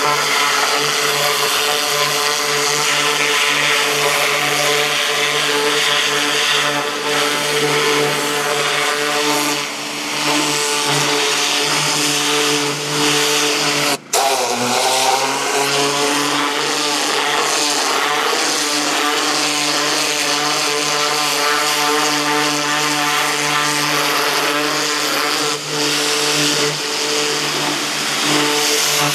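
Pressure washer's 14 HP Kohler gasoline engine running steadily under load, with the high-pressure water jet hissing as it blasts mud off steel excavator tracks. The sound cuts out for an instant about halfway through, and just after, the engine's pitch dips briefly and recovers.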